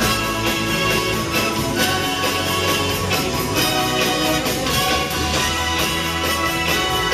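Live band music playing loud, with a steady beat.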